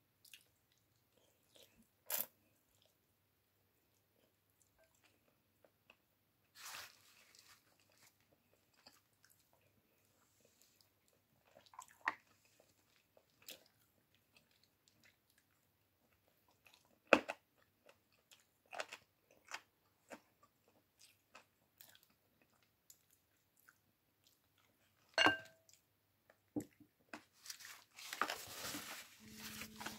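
Close-up eating sounds: a person chewing pieces of boiled chicken eaten by hand, with scattered sharp clicks and taps and a short rustle near the end.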